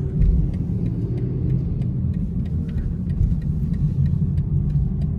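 Steady low rumble of road and engine noise inside the cabin of a BMW 420i convertible on the move.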